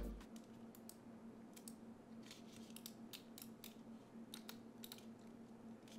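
Near silence, broken by a scattering of faint, short ticks from the G-Wolves HTX 4K's plastic honeycomb shell being squeezed and twisted by hand. There is hardly any flexing or creaking, the sign of a stiff, well-built shell.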